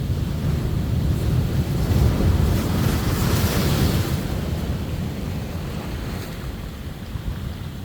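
Sea waves washing in, with wind rumbling on the microphone. One swell of surf rises about two seconds in and fades a couple of seconds later.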